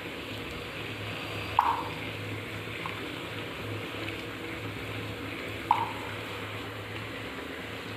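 Pan of coffee and honey heating on a gas stove, a steady bubbling hiss. Two sharp knocks with a short ring come about four seconds apart.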